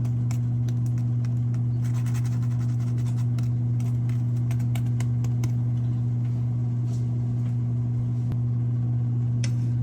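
A steady low motor-like hum, with faint scattered clicks and crackles over it.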